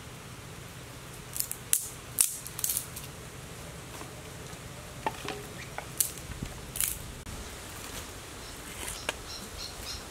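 Dry twigs snapped by hand as kindling for a small wood fire: a series of sharp cracks in two bunches, the first starting about a second and a half in, the second about six seconds in.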